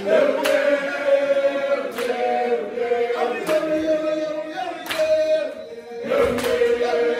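A group of people singing a chant-like song together in several voice parts, with a sharp beat, like a clap, about every second and a half.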